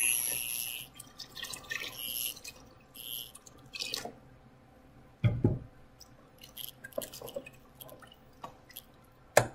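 Water pouring into a stainless steel stockpot of beans, stopping about a second in. Then a wooden spoon stirring beans and water in the pot, with scattered knocks and clinks against the pot, the loudest about five seconds in.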